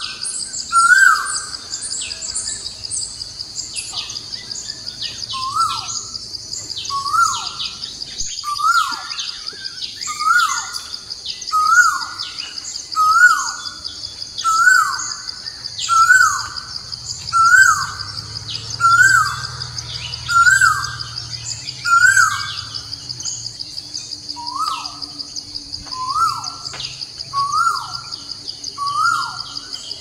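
A bird repeating a short note that rises and then drops, about once every second and a half with a brief pause near the end, over a steady high insect buzz and scattered chirps of other small birds.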